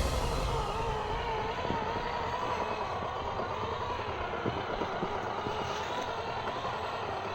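Electric drive motor and gearbox of a 1/18-scale RC 6x6 crawler truck whining, the pitch wavering up and down as the throttle changes.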